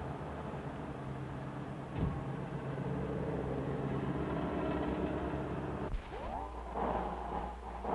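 Car engine running steadily as a late-1950s convertible pulls up, with a short knock about two seconds in. About six seconds in the engine sound cuts off and music begins with rising glides.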